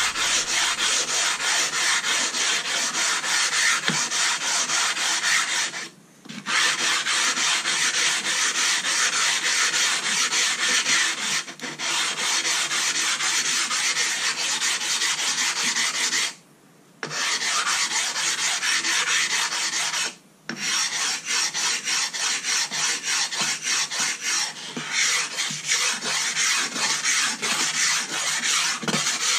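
Silicon carbide sharpening stone scrubbed back and forth on a flat lapping plate in a slurry of loose abrasive grit and water, a continuous gritty scraping. It breaks off a few times for a moment when the stone leaves the plate.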